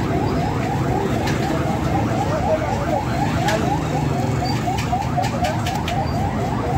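Busy street noise with a fast-repeating electronic-sounding chirp, about four to five a second, over a low traffic rumble, with a few sharp clicks.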